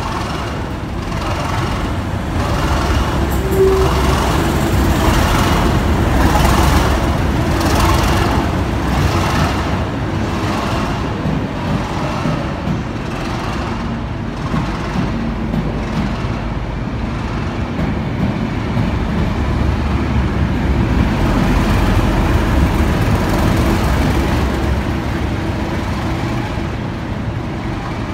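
Two Class 37 diesel locomotives, 37612 and 37610, with their English Electric V12 engines running, passing with an infrastructure test train. There is a heavy engine rumble and a regular clatter of wheels on the rails. The sound swells as the leading locomotive passes and again near the end as the trailing locomotive goes by.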